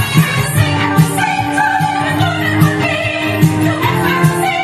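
Musical-theatre song: singing voices held on long notes over a steady, regular beat.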